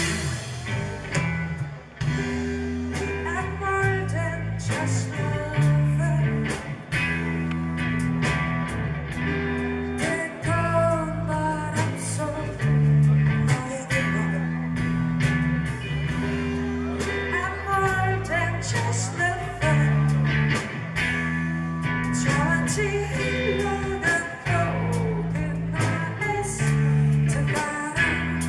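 Live rock band: a woman singing over electric guitar, bass guitar and a drum kit, with a steady drumbeat and a moving bass line.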